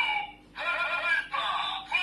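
Electronic voice and music sound effects played through a Bandai DX Kamen Rider toy's built-in speaker: a finisher sound sequence in short phrases of gliding pitch, with brief breaks between them.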